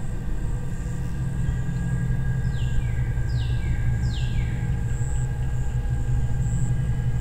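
Night-time outdoor ambience: a steady low rumble under a thin, steady high whine, with three short falling whistle-like calls about a second apart near the middle.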